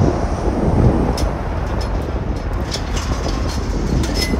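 Steady low outdoor rumble of street and yard noise, with a few short sharp clanks about a second apart.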